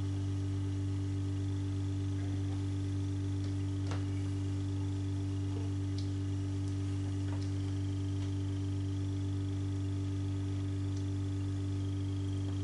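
Heat pump running with a steady low hum, a few faint clicks over it.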